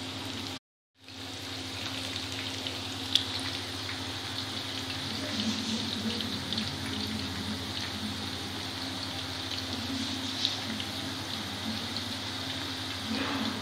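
Besan-coated okra deep-frying in hot oil: a steady sizzle of bubbling oil with a low hum underneath. The sound drops out for a moment just under a second in, and a single sharp click comes about three seconds in.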